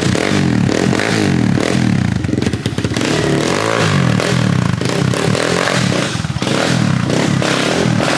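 Kawasaki KLX110 pit bike's small single-cylinder four-stroke engine running on a test ride, the revs rising and falling over and over as the throttle is worked, with the chain freshly tightened.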